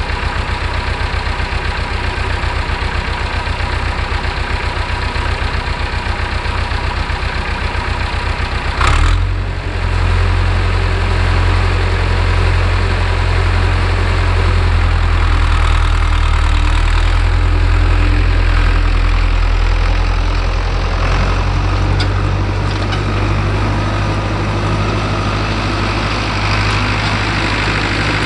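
Long 900 tractor's diesel engine idling with an even pulsing beat, then a clunk about nine seconds in, after which the engine runs louder and steadier.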